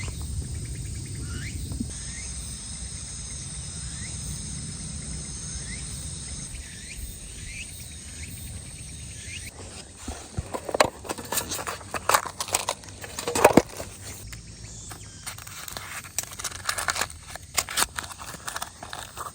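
Insects trilling steadily over a low outdoor rumble, with a few short rising chirps. About halfway through this gives way to scattered sharp clicks and knocks.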